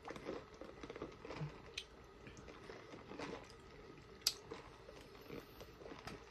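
Quiet sipping of sweet tea through a straw from a plastic cup, with soft swallowing and small mouth noises. A sharp click about four seconds in.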